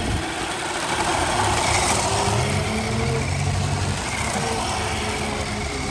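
Car engines idling steadily, a low hum over a constant wash of background noise.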